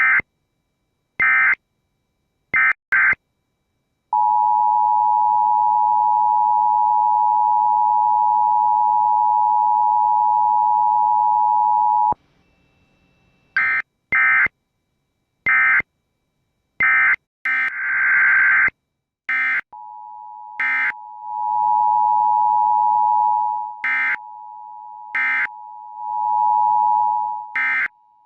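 Emergency Alert System tones: short, harsh bursts of SAME digital data, then the steady two-tone attention signal held for about eight seconds. After more data bursts, a quieter two-tone attention signal swells and fades with further bursts sounding over it.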